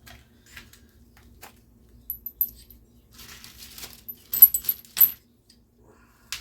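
Light metallic clinking and jingling of small tools or engine parts being handled, in two short clusters: a few pings about two seconds in and a louder run of clinks between four and five seconds in, with a sharp click near the end.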